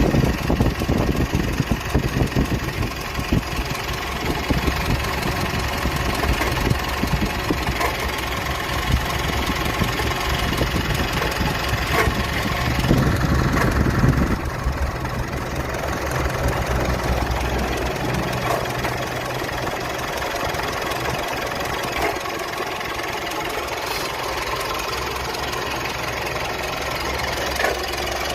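Car engine idling steadily with an abnormal noise, the fault being diagnosed; it runs louder for a couple of seconds around the middle.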